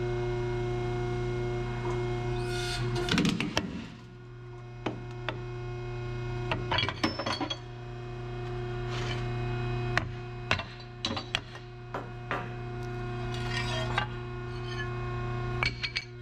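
A 100-ton hydraulic press's pump runs with a steady hum while its ram crushes a cast iron trailer brake drum. The drum splits with a loud crack about three seconds in, followed by scattered short clinks and knocks of broken metal pieces.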